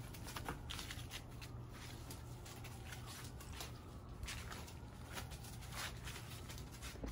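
Irregular rustling and crackling as a mini labradoodle puppy tugs and hangs on dry plant stalks and scrambles over fallen leaves.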